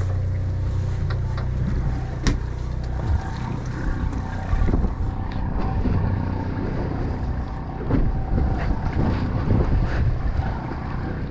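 A fishing boat's engine running steadily, with wind on the microphone and a few scattered knocks.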